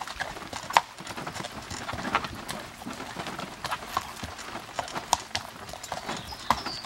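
Hoofbeats of a single harnessed horse walking a dirt and grass track while pulling a cart: an uneven run of clip-clop steps, several a second.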